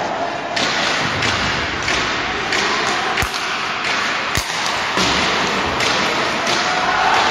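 Ice hockey play: skates scraping across the ice, with two sharp knocks of stick, puck or boards a little over a second apart in the middle.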